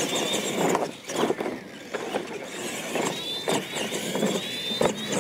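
Electric radio-controlled monster trucks racing on dirt: a high motor and gear whine with tyres scrabbling over the dirt, and a few sharp knocks as they hit the jumps.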